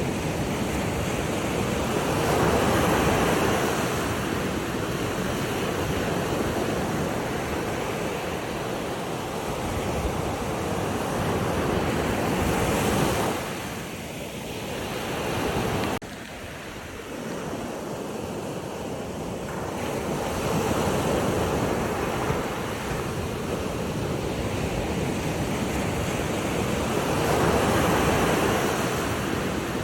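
Sea waves washing in and receding, a rushing sound that swells and fades in slow surges several seconds apart, with a sudden drop in level about sixteen seconds in.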